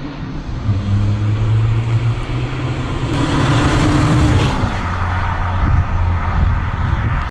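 BMW E46 320Ci's 2.2-litre straight-six running through its exhaust, with a brief rise in revs about three seconds in before it settles back to a steady note. It cuts off suddenly at the end.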